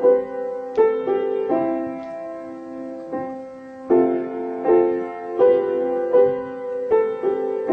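Slow, gentle solo piano music: single notes and chords struck about once every three-quarters of a second, each left to ring.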